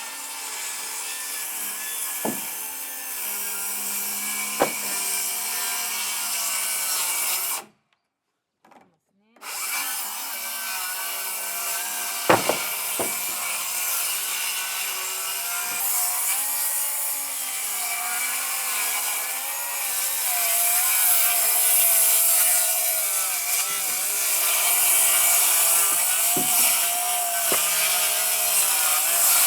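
Tools working timber: a steady sawing and rubbing noise on wood with a few sharp knocks, broken by a second of dead silence about eight seconds in.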